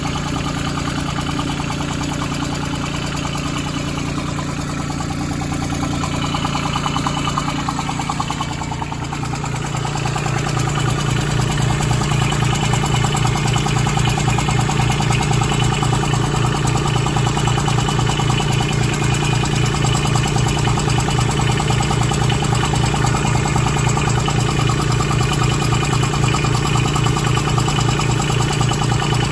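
Branson 2500h tractor's A1100 diesel engine running with an even, rhythmic mechanical noise that the owner finds strange on a nearly new engine. He first suspected the rocker arms but doubts that is the cause. About ten seconds in the engine note changes and gets louder, then holds steady.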